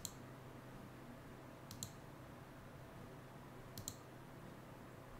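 Faint computer mouse clicks, three quick double clicks about two seconds apart, over near silence.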